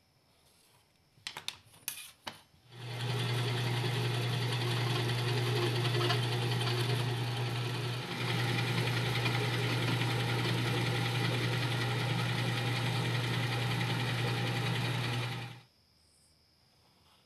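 A few clicks, then a handheld electric drill runs steadily for about thirteen seconds with a low, even hum. It dips for a moment about halfway through and cuts off near the end.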